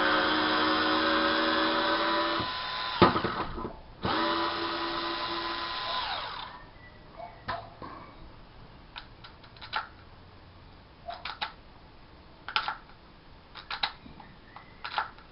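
Cordless screwdriver motor running under steady whine for about three seconds, a sharp click, then a second run of about two seconds that winds down. Scattered light clicks from the tool follow through the rest.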